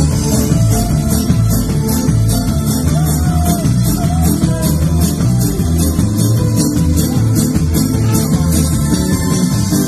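Live Roma band music from keyboard, electric guitar and drum kit, with the cymbals keeping a fast, steady beat over a strong bass line.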